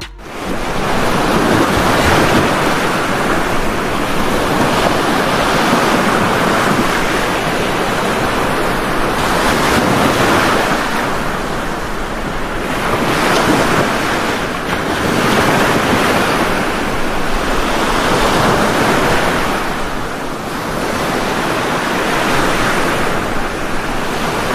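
Sea surf breaking on a sandy beach, a steady wash that swells and eases every few seconds as waves come in, with wind on the microphone.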